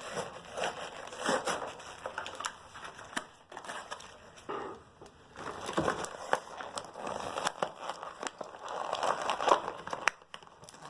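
Toy packaging crinkling and tearing as it is opened by hand, in irregular crackles with a short lull around the middle.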